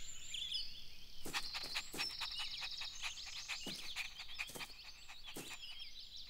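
Outdoor birdsong ambience: many small birds chirping and trilling at once, with short sharp notes scattered through it.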